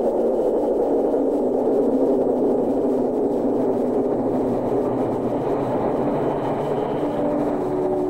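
A steady, low droning warning sound played into the hall, with a few held tones coming in near the end.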